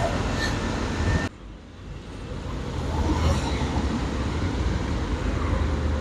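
Riding noise from a motorcycle on the move: a steady rush of wind on the microphone over a low engine and road rumble. It drops away suddenly a little over a second in, then builds back up to full level.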